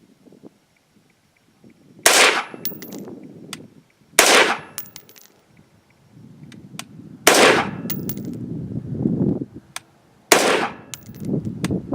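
Four single shots from an unsuppressed 5.56 Adams Arms piston AR-15, fired slowly about two to three seconds apart, each dying away in an echo.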